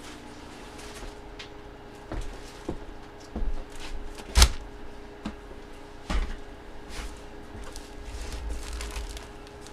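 Hands handling and unwrapping a packaged jersey on a table: a series of scattered knocks and rustles, with one sharp, loud click about halfway through, over a faint steady hum.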